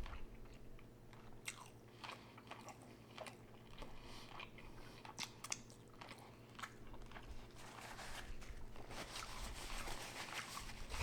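Close-miked chewing and mouth sounds of someone eating: soft wet smacks and small crunches at irregular moments, over a faint steady low hum, busier in the last few seconds.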